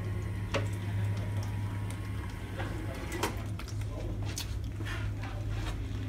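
A steady low hum with irregular light clicks and taps, about one or two a second.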